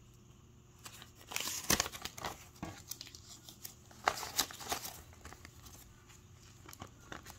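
Paper banknotes and a plastic binder envelope rustling and crinkling as cash is pulled out and sorted by hand, in two busier spells about a second and a half in and about four seconds in.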